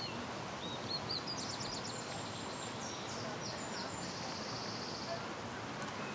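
A small songbird singing quick, high trilled phrases over a steady rushing hiss.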